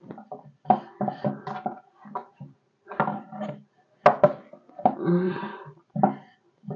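A person's voice in short phrases with brief pauses between them, not picked up as words.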